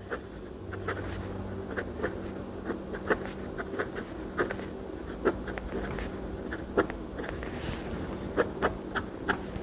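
Steel medium nib of a cheap fountain pen writing numerals on notepad paper: a string of short, irregular scratches and ticks as each stroke starts and ends, over a low steady hum.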